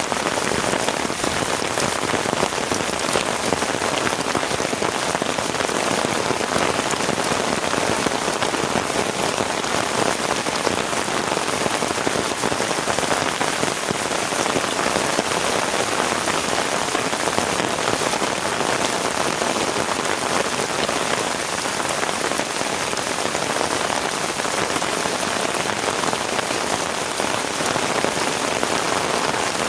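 Heavy rain falling steadily, a dense, even patter of drops that does not let up.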